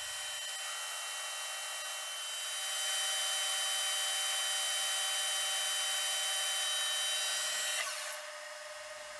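Metal lathe's spindle running with a steady whine, a little louder from about three seconds in, then winding down near the end as the spindle is switched off and coasts to a stop.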